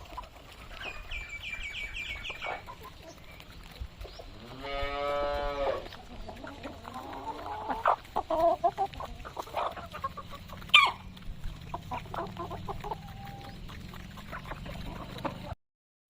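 Kadaknath chickens clucking and calling in a flock, with a quick run of high chirps about a second in and one long drawn-out call around four seconds in. A single sharp knock near the eleven-second mark is the loudest sound.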